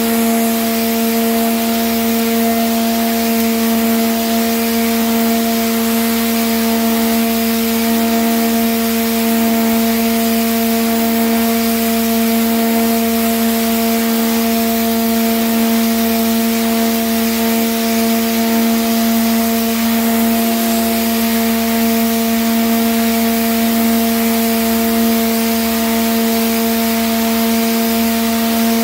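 Pressure washer running steadily: a constant motor-and-pump hum under the hiss of the water jet blasting black algae off stone paving.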